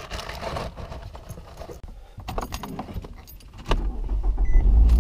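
Keys jingling and small handling clicks, then a sharp click and a car's low, steady rumble that starts abruptly near the end.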